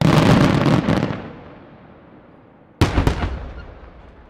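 Aerial firework shells bursting overhead: a loud burst of rapid cracks with a low rumble lasting about a second, then fading. Nearly three seconds in, another sharp bang is followed by a few quick reports, each trailing off in echo.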